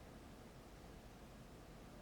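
Near silence: a faint, steady background hiss with a low rumble and no distinct sound events.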